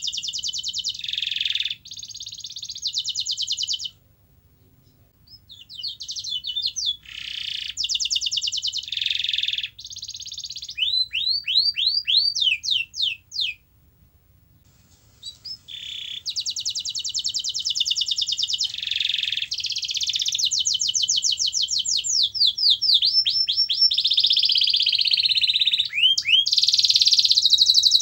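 Domestic canary singing: long phrases of rapid high trills and repeated sweeping whistles, broken by two short pauses, then one long unbroken phrase.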